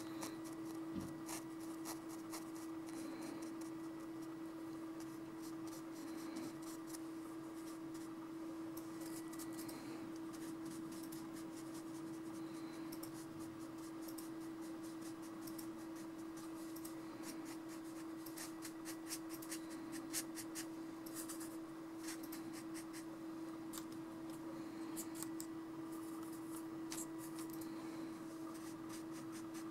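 Watercolour brush used dry, scratching across textured watercolour paper in clusters of short strokes, over a steady faint hum.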